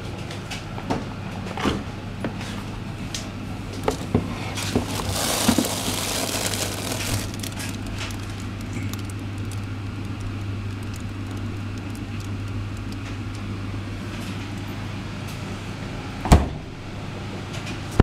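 A refrigerator being opened and handled: a steady low hum with scattered knocks and rustling of plastic, a brief rushing hiss about five to seven seconds in, and one loud thud near the end.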